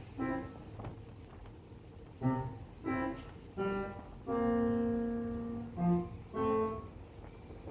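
Instrumental background music: a slow melody of separate notes, likely piano, with one note held for over a second about halfway through.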